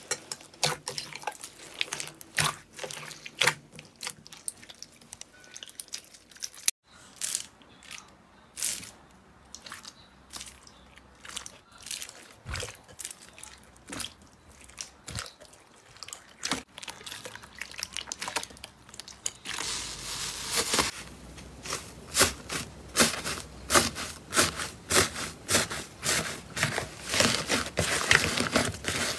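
Hands squeezing and poking slime in bowls: irregular wet squelches with sharp clicking and crackling pops. There is a brief break about seven seconds in, and from about twenty seconds the pops come thicker and faster.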